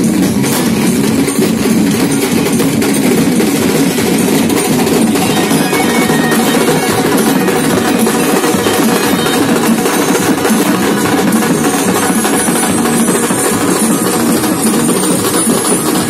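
Indian wedding band (band baja) playing loud, continuous procession music, with drummers beating large slung drums.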